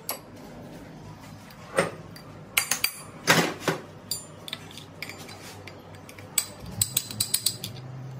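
Steel gearbox parts clinking and knocking as a transmission main shaft's gear stack is handled and worked with a metal rod: scattered sharp metallic clinks, with a quick run of clicks near the end.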